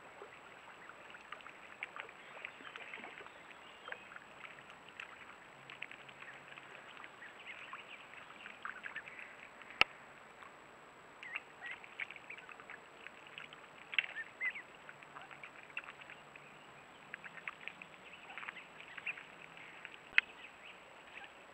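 Mallard ducklings peeping, many short high chirps scattered throughout. Two sharp clicks stand out, about ten seconds apart.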